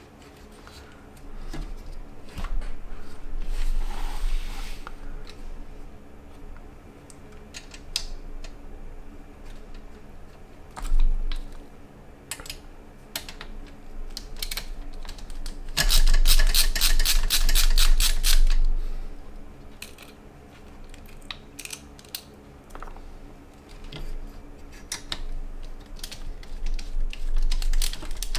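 Scattered clicks and taps of PC case parts and fans being handled and fitted, with a run of rapid, evenly spaced clicking a little past halfway, over a faint steady hum.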